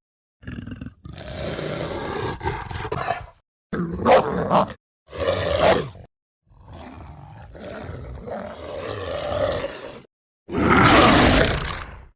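Film werewolf creature sound effects: a string of about six separate roars and growls, each cut off sharply by a moment of silence before the next, with the loudest roar near the end.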